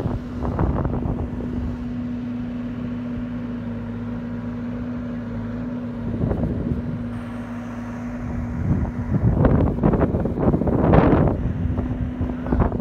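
Wind buffeting the microphone in gusts over the steady hum of an earth-moving machine's engine running. The gusts are strongest about two-thirds of the way through.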